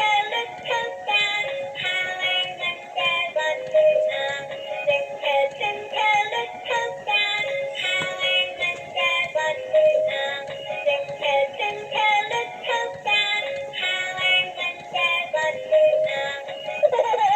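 Music: a tinny electronic melody of short, evenly paced notes with synthesized singing, played without a break.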